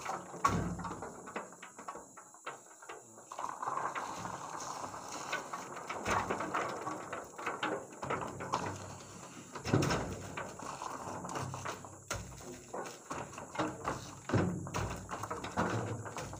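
Oil palm fruit bunches sliding down a wooden plank chute and landing in a truck bed with irregular heavy thuds, several seconds apart, with scraping and rustling in between.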